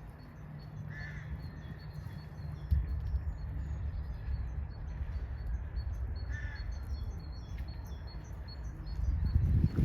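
Small birds chirping over and over, with two louder calls from another bird, one about a second in and one past the middle, over a steady low rumble that swells near the end.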